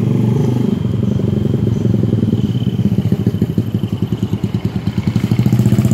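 A small engine running steadily at idle, with a fast pulsing beat that turns uneven from about halfway through.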